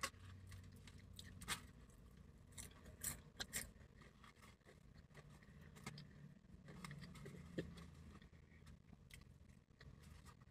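Quiet, scattered crackles and clicks of crispy fried chicken being picked apart by hand and chewed, over a faint low hum.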